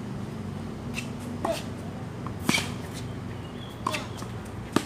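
Tennis ball struck by rackets and bouncing on a hard court during a rally: a series of about five sharp pops, the loudest about two and a half seconds in.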